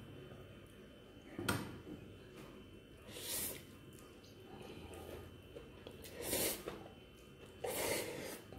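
A person eating noodles from a ceramic bowl: a spoon clicks once against the bowl, then comes a series of short slurps and sniffs a few seconds apart.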